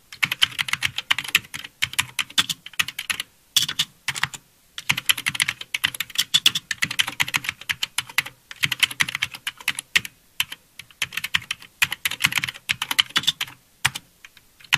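Typing sound effect: fast runs of keyboard key clicks in stretches of a few seconds, broken by short pauses, matching text being typed out letter by letter.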